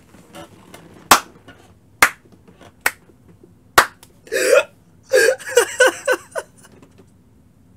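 Four sharp smacks about a second apart, then a person laughing hard in a string of short, rapid bursts.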